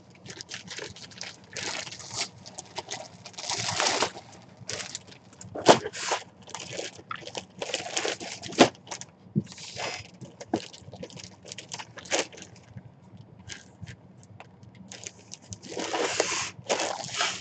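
Clear plastic bag crinkling and rustling in irregular bursts as a packaged jersey is handled, with light scrapes against the cardboard box.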